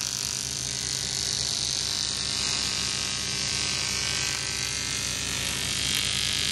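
Electric arc welding on a cracked aluminium alloy car wheel: a steady buzzing hum with a hiss. The weld runs along the inner side of the rim to seal a crack that leaks air.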